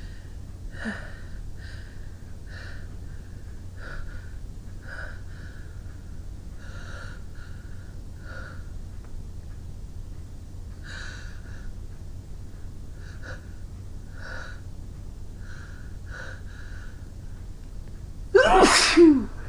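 A woman's sneeze build-up: short, faint breathy sounds come about once a second, then near the end a single loud sneeze with a voiced cry falling in pitch.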